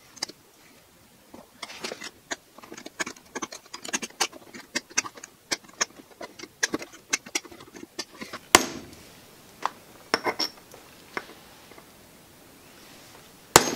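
Light metallic clicks and taps as dial calipers and cast-iron pipe fittings are handled, then a few sharp metal strikes with a short ring, one past the middle and the loudest near the end, as a centre punch marks the centre of a black iron pipe coupling.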